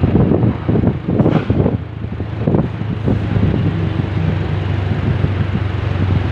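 Bus engine running with wind buffeting the microphone in gusts; a steady low hum comes through from about two seconds in.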